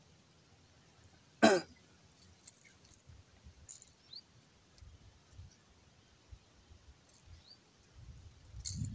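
A man gives one short cough about one and a half seconds in. After it come only faint low bumps of him handling his fishing gear, with a brief louder rustle near the end.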